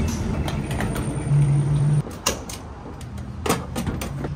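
Gas pump nozzle dispensing fuel with a steady low hum that cuts off suddenly about halfway through, followed by a few sharp clicks and clunks as the nozzle is handled and hung back on the pump.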